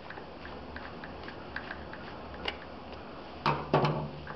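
Light clicks of a screwdriver turning the screws on the plastic top cover of an oil burner's flame control box. A cluster of louder plastic knocks and handling comes about three and a half seconds in as the cover is taken off.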